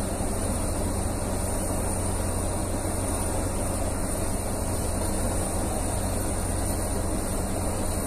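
Heavy equipment engine running steadily: a constant low rumble with a hiss over it, no change in level.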